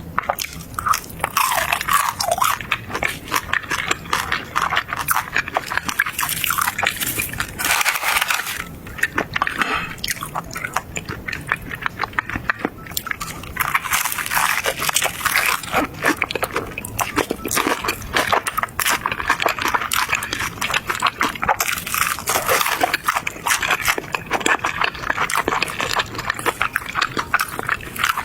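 Close-miked eating: a person chewing and biting crunchy food, a dense, continuous crackle of small crunches and mouth clicks.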